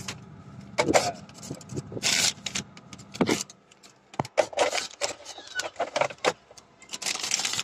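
A sheet of printer paper rustling and crackling as it is held to a dashboard air vent in the blowing air of a Mercedes truck's heater blower fan. A low hum from the running blower sits under it and drops away about three seconds in.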